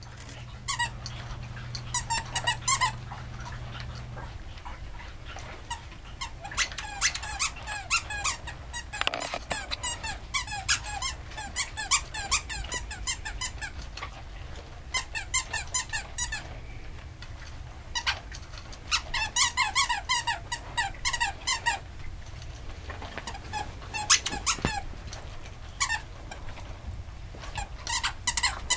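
Dog chewing a plush squeaky duck toy, squeezing out rapid runs of high squeaks in bursts, with pauses of a few seconds between them.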